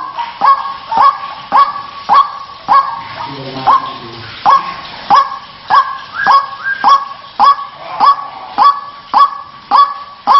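White-breasted waterhen (ruak-ruak) call, a harsh "kruwaak" repeated about twice a second in a long steady series, with a short break about three seconds in.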